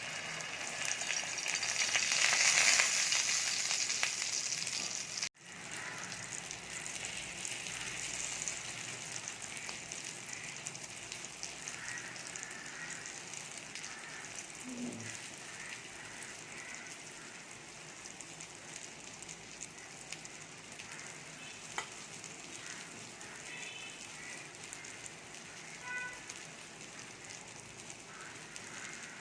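Beaten egg mixture poured into hot oil on a tava, sizzling loudest for the first few seconds as it hits the oil, then settling into a steady, gradually quieter sizzle as the omelette cooks. The sound cuts out for an instant about five seconds in.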